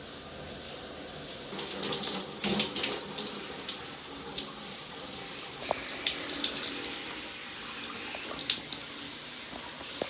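Shower water running steadily, with louder splashing about a second and a half in and again around six seconds in.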